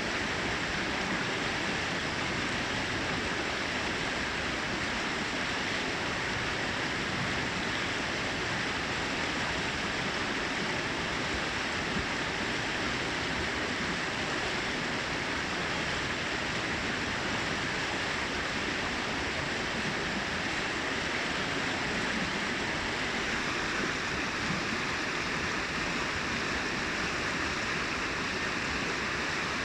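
Brook water cascading over rocks: a steady, even rushing and babbling.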